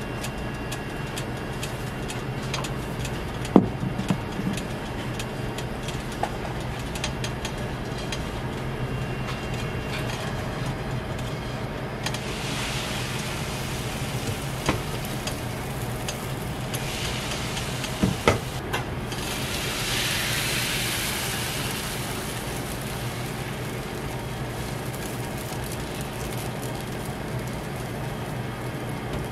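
Crepe-making at a hot round electric griddle: a soft sizzling hiss as thin batter meets the hot plate and is spread, with a few sharp utensil knocks, over a steady low hum.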